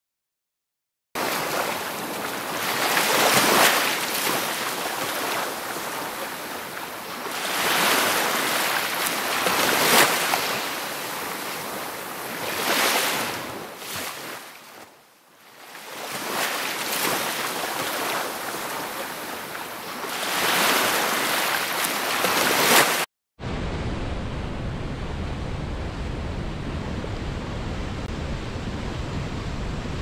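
Ocean surf washing onto a beach, starting about a second in and swelling and falling back every few seconds as waves break. About three quarters through it cuts off suddenly and gives way to the steady rush of a river pouring through rocky rapids.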